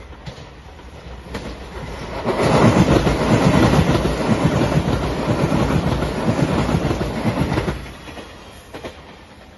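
Electric limited express train (Anpanman-painted Shiokaze) passing close by at speed: rumble and wheel clatter swell about two seconds in, stay loud for about five seconds, then fall away sharply near the end.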